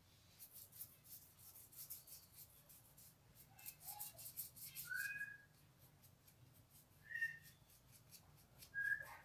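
A paintbrush stroking paint onto a cardboard letter: light, quick scratchy strokes, several a second, thinning out after about six seconds. Three short high tones, about five, seven and nine seconds in, stand out above the brushing.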